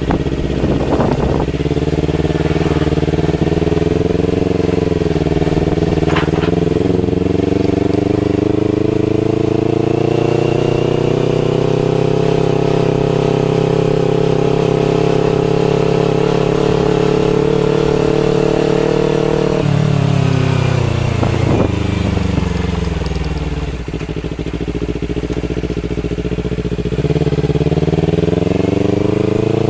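Motorcycle engine running under way, its pitch holding fairly steady, then dropping sharply about two-thirds of the way through as the rider slows, and rising again near the end as it picks up speed.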